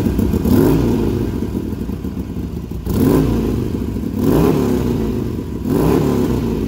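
Harley-Davidson Sportster's air-cooled V-twin running through a newly fitted Supertrapp SuperMeg 2-into-1 exhaust, idling with four throttle blips that rise and fall back, on its first run to check the exhaust for leaks.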